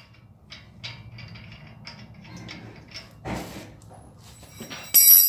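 Ratchet wrench clicking in short strokes, about three clicks a second, as suspension bolts are worked. There is a knock about three seconds in and a loud metallic clank that rings near the end.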